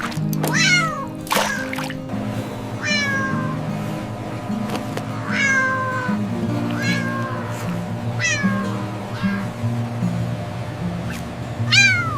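Cat meowing, about eight short meows that fall in pitch, over background music.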